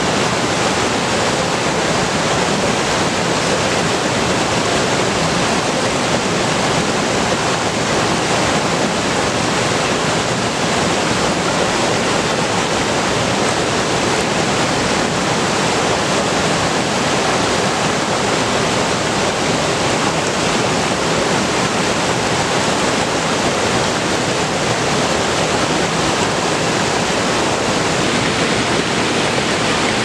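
Steady, even rushing noise like running water, unchanging throughout.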